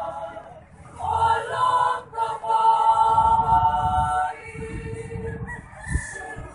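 Choir singing in parts, holding long chords that thin out after about four seconds. A low rumble runs under it, with a single thump near the end.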